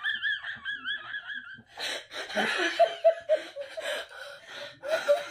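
A woman and a boy laughing hard together: a high, wavering squealing laugh for the first second and a half, then fuller, lower laughter in quick pulses.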